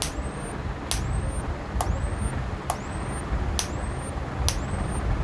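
Solar-powered electric fence energizer (jhatka machine) pulsing: a sharp click a little faster than once a second, each followed by a short high whine that rises in pitch. The clicks are the machine firing its shocks while running off a 12 V solar panel. A low steady rumble sits underneath.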